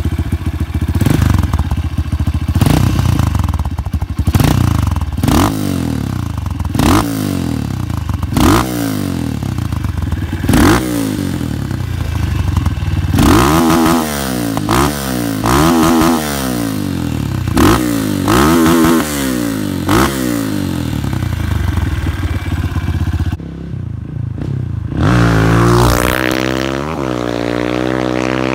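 Modified 2004 Honda CRF230F's single-cylinder four-stroke engine, high-compression rebuilt and fitted with a Protork PowerCore 2 full exhaust, idling and blipped repeatedly, about a dozen quick revs. After a brief drop about 23 seconds in, the bike is heard running steadily as it is ridden, its note rising slightly near the end.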